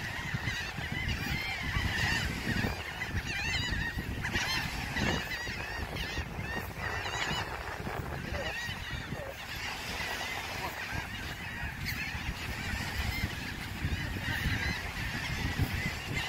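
A large flock of gulls calling, many short overlapping calls, with wind rumbling on the microphone.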